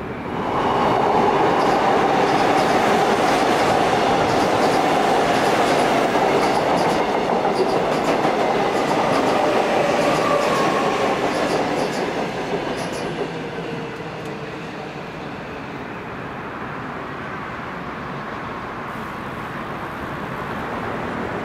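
Seoul Metro Line 2 subway train running past on the track, its wheels clattering over the rail joints, with a whine underneath that slowly drops in pitch. It is loud for about the first twelve seconds, then dies away.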